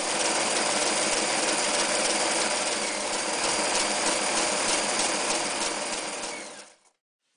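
Janome New Home 551 electric sewing machine running steadily as it stitches, then slowing and stopping near the end.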